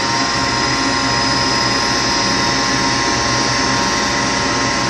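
Gas furnace fan motor running steadily, a hum with a steady whine, on a startup attempt in which the burner never lights; the owner thinks no gas is flowing.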